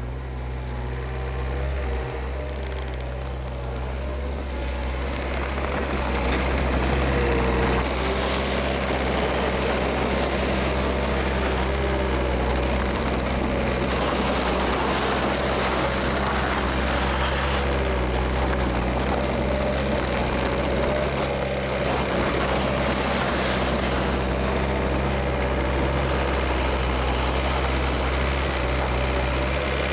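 Takeuchi TL230 compact track loader's diesel engine running steadily as the machine works snow, growing louder over the first several seconds and then holding level.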